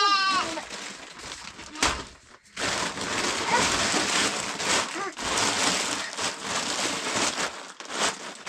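A sheep's bleat trails off at the start. After a sharp click and a brief pause comes irregular rustling and crackling, like dry leaves or undergrowth being disturbed, in uneven spells.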